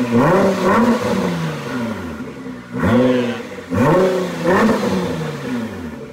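Nissan GT-R's twin-turbo V6 being revved in four quick throttle blips, each sweeping up sharply and then falling away slowly back toward idle.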